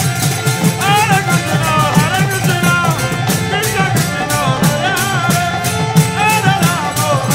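Devotional kirtan: a lead voice sings in gliding, ornamented phrases over a quick, steady beat of kartal hand cymbals and drum, with the voice coming in about a second in.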